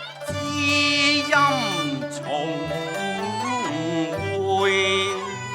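A Cantonese opera accompaniment ensemble plays an instrumental interlude between sung lines. Bowed strings slide down in pitch about a second in and glide up again near the end.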